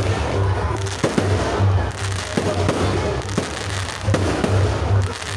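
Fireworks going off, with a sharp bang about every second, over loud music with a pulsing bass beat.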